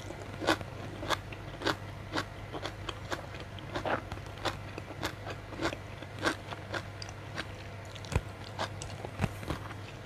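A person chewing a mouthful of blanched sea kale stems and rice at close range: crunching strokes in an even rhythm, a little under two a second.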